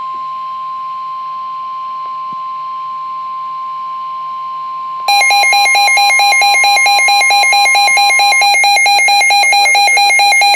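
NOAA Weather Radio warning alert tone, a steady tone of about 1 kHz. About five seconds in, a much louder rapid warbling beep starts over it, the weather radio receiver's own alarm going off. The steady tone stops a few seconds later while the beeping goes on.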